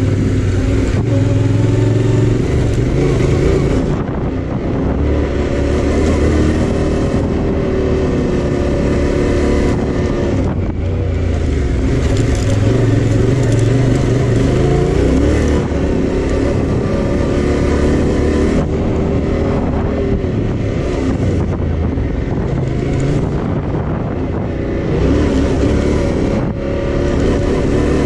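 Yamaha Tenere 700's parallel-twin engine running under way, its pitch rising and falling as the throttle opens and closes, with a rush of noise over it. The level dips briefly every several seconds as the throttle eases off.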